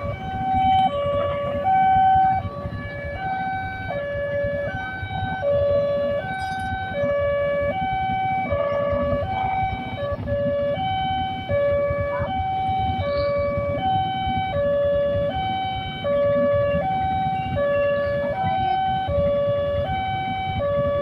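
Railway level-crossing warning alarm sounding while the barrier is down for an approaching train: an electronic two-tone signal that switches steadily between a lower and a higher note, a full cycle about every one and a half seconds.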